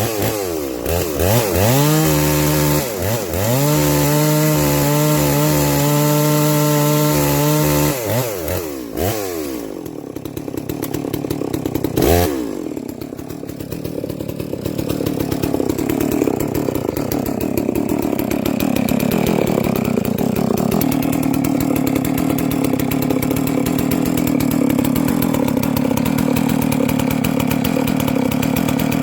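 Farmertech G660 two-stroke chainsaw revving up and down and holding at high speed for several seconds. It then drops in pitch and runs under load, cutting through wood, with a sharp click about twelve seconds in.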